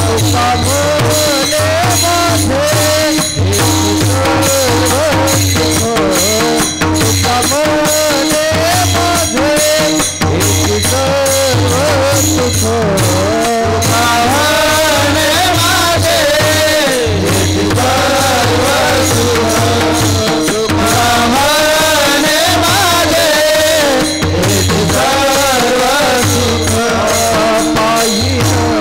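A male voice sings a Warkari bhajan melody (chal) over a dense, regular clatter of cymbal strikes and a steady drone underneath.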